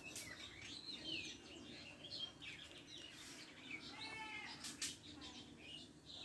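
Faint birds chirping, with short high calls scattered through. A couple of sharp clicks come a little before five seconds in, from a knife blade knocking against a steel plate while cutting.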